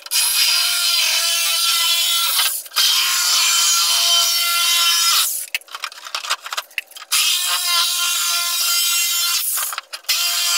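Corded reciprocating saw cutting through a blue plastic 55-gallon drum, running in three spells of a few seconds each. Between the second and third spells it stops for a couple of seconds while the plastic knocks and rustles as the cut piece is handled.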